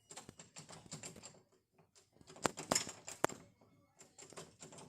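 Quick irregular clicking and tapping, like something being rattled or knocked on, with a few louder sharp clicks around the middle.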